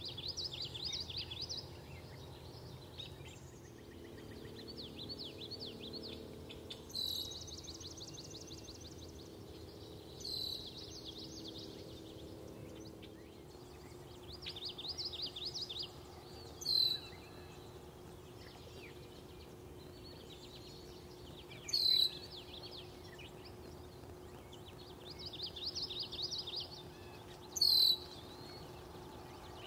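Songbirds singing: one repeats a rapid, buzzy trill of about a second and a half every few seconds, while another gives a loud, short, downward-slurred note about every five or six seconds.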